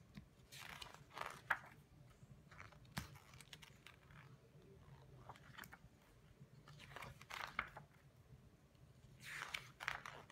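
Glossy pages of a large illustrated book turned by hand, a faint papery swish and crinkle with each turn, several times.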